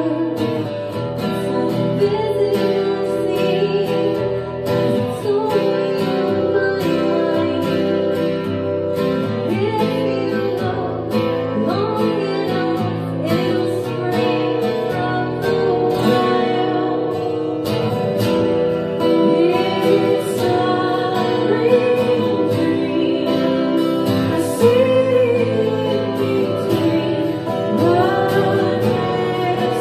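A woman singing with an acoustic guitar strummed along.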